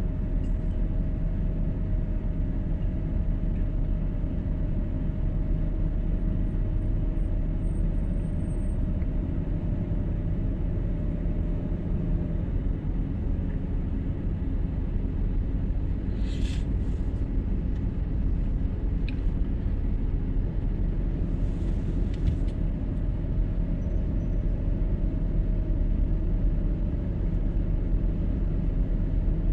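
A car driving along: steady engine and road rumble with a faint even hum. There are a couple of short hisses just past the middle.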